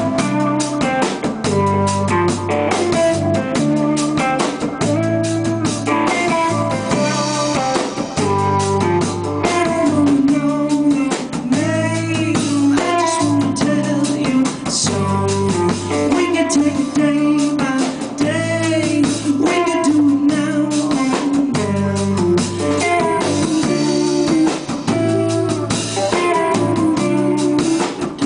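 Live rock band playing: distorted electric guitar, bass guitar and drum kit with a steady beat, and a man singing at times.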